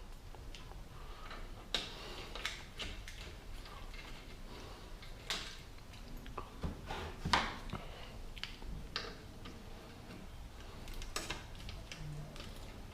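Irregular light clicks and taps of hand tools and metal bicycle parts being handled during a bike teardown, with a sharper knock now and then.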